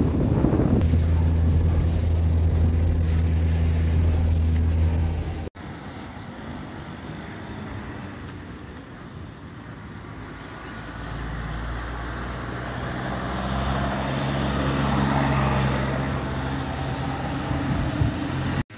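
A car engine droning steadily while driving, heard from inside the car. After a cut, road traffic on a wet road, with a vehicle engine growing louder as it draws near.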